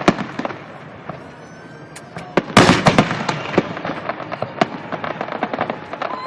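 Fireworks display: scattered bangs and crackling, a brief lull with faint rising whistles about a second in, then a loud dense burst of crackling at about two and a half seconds, followed by continued scattered pops.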